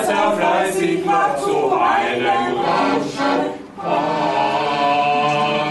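A group of voices singing a German song together, a cappella, with a brief dip about three and a half seconds in followed by a long held note.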